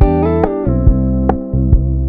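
Background pop music: plucked guitar and bass over a steady beat of about two hits a second, without singing.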